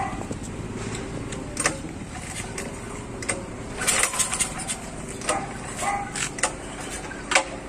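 Irregular knocks and clicks of hands working on an old gasoline generator's engine and steel frame, about nine in all, with a cluster about four seconds in and a sharp one near the end, over a steady hum.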